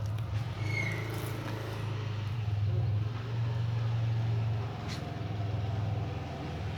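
Steady low rumble of an engine running, its pitch wavering slightly, with a brief high squeak about a second in.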